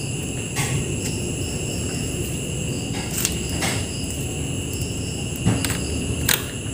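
Crickets chirring steadily. Over them come several light, scattered clicks and taps as parts are handled on the TV's metal chassis while the plastic panel support guide is refitted.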